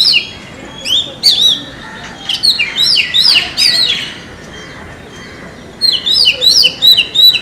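Oriental magpie-robin singing: bursts of quick, repeated downward-sliding whistled notes, pausing for about two seconds midway before starting again.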